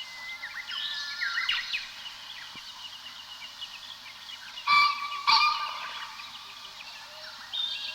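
Several wild birds calling and singing together in overlapping chirps and trills, with two loud calls in quick succession about five seconds in and another burst of song near the end.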